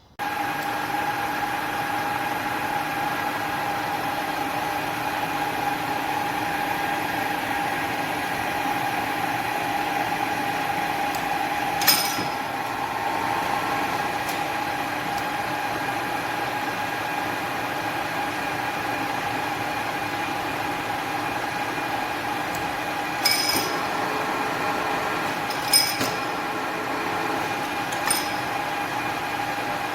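Dalian centre lathe running steadily, a constant gear whine over the machine's running noise, with a few short sharp clicks along the way.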